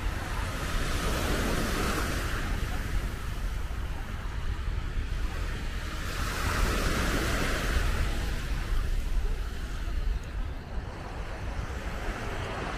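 Sea waves breaking and washing up the beach, swelling twice about five seconds apart, over a steady low rumble of wind on the microphone.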